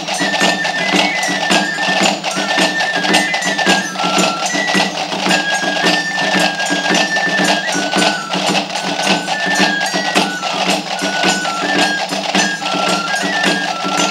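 Ibizan ball pagès music: a small cane flute (flaviol) plays a single high melody in short stepping notes over a steady drum beat, with the male dancer's large castanets clicking in rhythm.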